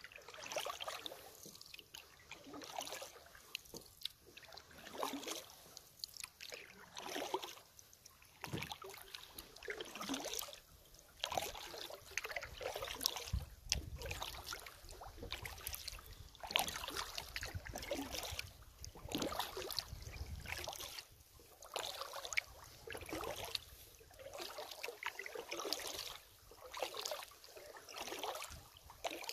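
Kayak paddle strokes in calm water, a splash about every one to two seconds in a steady paddling rhythm.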